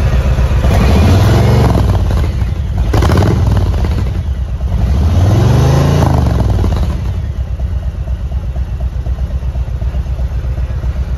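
Harley-Davidson Road Glide Special's Milwaukee-Eight 114 V-twin revved twice, each rev rising and falling back, with a sharp crack between the two. It then settles into a steady, pulsing idle.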